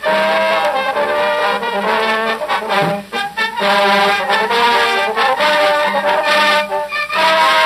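Lively brass-led soundtrack music, with trombone carrying the tune over other instruments and a low note sliding downward about three seconds in.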